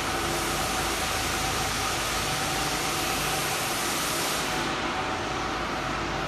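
Steady background noise of a factory hall: a loud, even hiss over a low hum and a few faint steady tones. The highest part of the hiss fades about four and a half seconds in.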